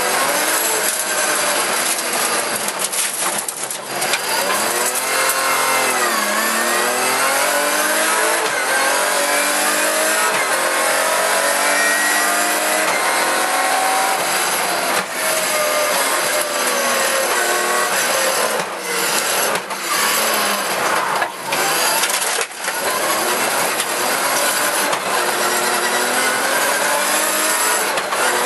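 Rally car engine at full throttle heard from inside the cabin. Its note climbs and drops again and again as the car runs up through the gears, with short dips where the driver lifts off or shifts.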